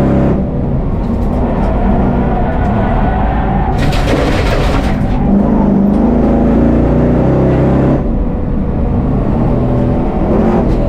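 Engine of a 1000-horsepower VF Commodore race car running hard on track, heard from inside the car, with an exhaust loud enough to exceed a 95 dB trackside noise limit. A rush of hiss rises over the engine for about a second and a half, about four seconds in.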